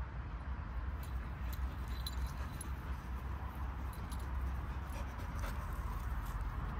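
A springer spaniel and a cream curly-coated dog playing on grass: collar tags jingling and scattered light clicks, over a steady low rumble.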